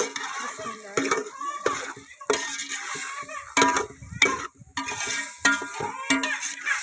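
A metal spoon stirring chickpeas in a large aluminium pot, with repeated scrapes and knocks against the pot's sides and bottom, roughly one to two a second.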